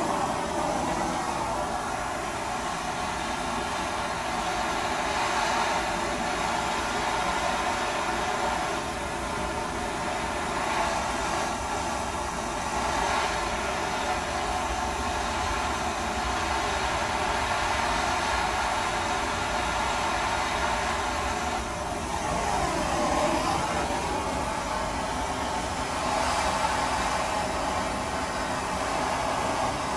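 Handheld gas blowtorch burning with a steady hiss, its flame played over wet oil paint on a canvas. The sound wavers briefly a little past the middle.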